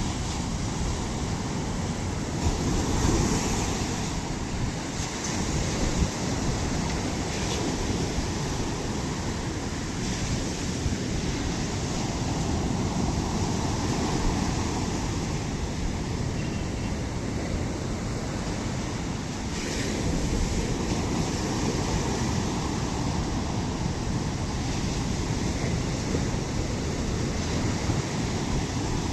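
Sea waves breaking on the shore in a continuous surge, with swells of louder surf every several seconds. Wind buffets the microphone, adding a low rumble.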